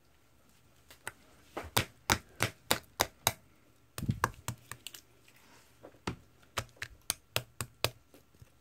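Slime being pressed and squished, making sharp clicks and pops, about four a second. There are two runs of clicks, with a denser crackle between them about four seconds in.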